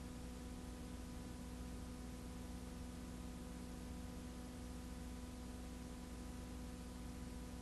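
Steady low electrical hum with an even hiss and no other sound: the noise floor of a silent film transfer.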